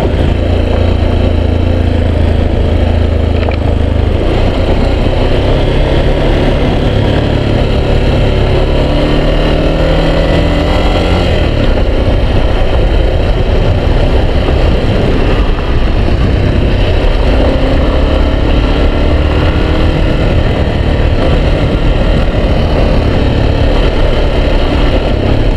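Yamaha XTZ 250 Lander's single-cylinder four-stroke engine running steadily as the motorcycle rides along a dirt road. Its pitch climbs slowly twice as it pulls.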